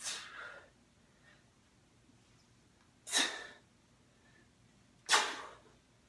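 Three short, sharp, forceful exhalations from a man lifting a kettlebell. The first comes at the start, the next about three seconds later and the last two seconds after that, and the last is the loudest.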